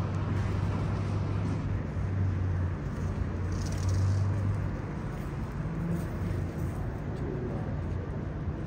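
Steady low hum over a background hiss, the hum easing off about five seconds in.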